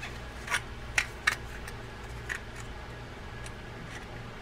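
A few light clicks of small parts being handled as the brass side plate of a Shimano Calcutta reel is fitted to its frame, the sharpest about a second in, over a low steady hum.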